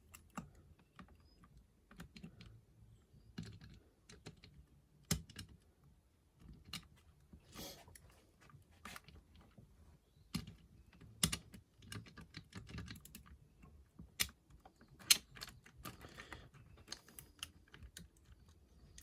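Irregular small metallic clicks and taps from a lever-lock pick working inside a 5-lever mortice lock, probing and lifting the levers against tension on the bolt.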